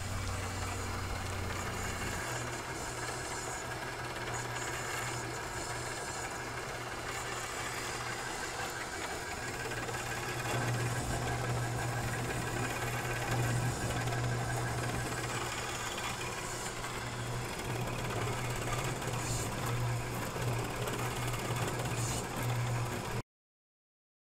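Rock trommel running: its electric gear motor hums steadily as the wire-mesh drum turns on its drive wheels and idle wheels. A little louder about halfway through, it cuts off suddenly near the end.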